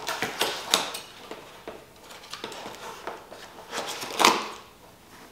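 Handling noise: light clicks, taps and rustles as an item is handled, with one louder rustle about four seconds in.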